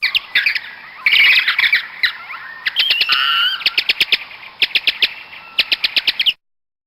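Bats squeaking and chattering: shrill squeaks and chirps mixed with quick trains of sharp clicking calls. It cuts off suddenly near the end.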